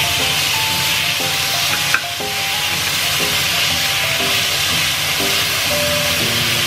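Chopped kimchi and green onion sizzling in hot oil in a frying pan as a wooden spatula stirs them, with one sharp knock about two seconds in. Light background music with a melody plays along.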